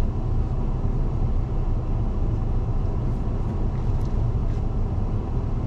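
Steady low rumble of car noise heard from inside the cabin.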